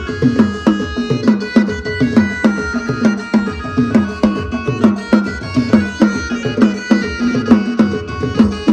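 Balochi lewa music: a keyboard playing a melody over a fast, steady drum beat.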